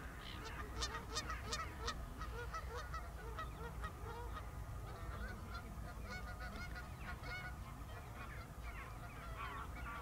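A flock of geese honking and cackling without a break, many short overlapping calls. Sharper, higher bird calls stand out in the first couple of seconds.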